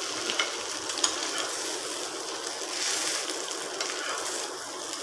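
Egg-stuffed dosa frying in oil on a hot tawa, its second side cooking just after being turned: a steady sizzle, with a few light clicks in the first second and a half.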